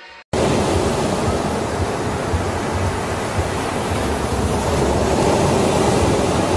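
Ocean surf: a steady, loud rush of waves that cuts in suddenly just after the start.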